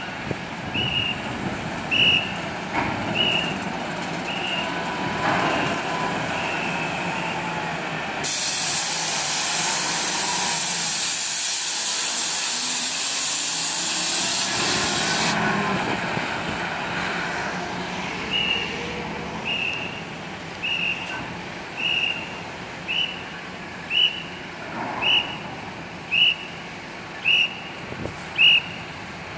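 Heavy trucks driving off a ferry's stern ramp, engines running, with a high electronic beep about once a second through most of it, growing louder near the end. In the middle, a loud steady air hiss lasts about seven seconds, starting and stopping sharply.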